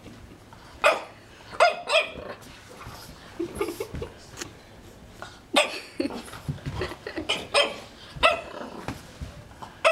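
French Bulldog puppy barking at a magazine it is afraid of, in short, sharp barks. Three come in the first two seconds, then after a pause a quicker run of barks starts about halfway through.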